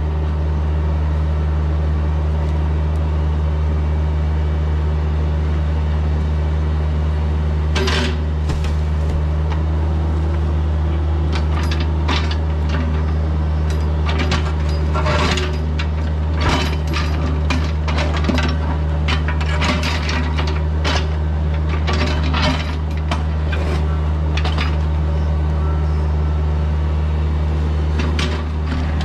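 Bobcat E26 mini excavator's diesel engine running steadily, with irregular clanks and knocks of the steel bucket working against rock, starting about eight seconds in.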